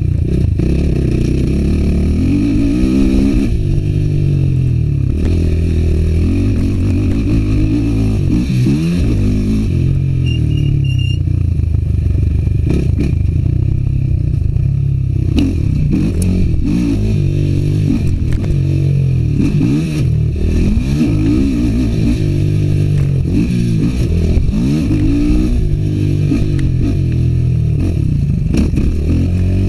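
Suzuki LT-R450 quad's single-cylinder four-stroke engine revving hard and easing off again and again as it is ridden over a dirt motocross track, the pitch rising and falling with the throttle and gear changes.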